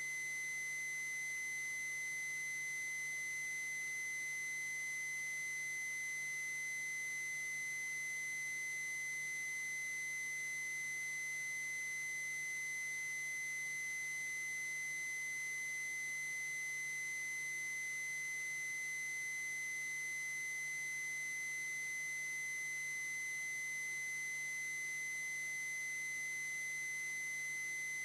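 A single steady, high-pitched electronic tone, unbroken and at one pitch, over a faint low hum.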